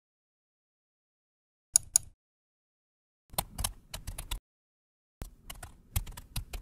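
A computer mouse double-clicks about two seconds in, then a computer keyboard is typed on in two short runs of keystrokes, with dead silence between.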